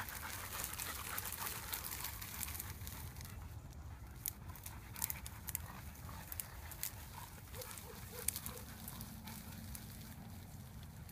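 Dogs running through dry cut corn stubble, the stalks crackling under their feet, with a few short whines from a dog about two-thirds of the way through.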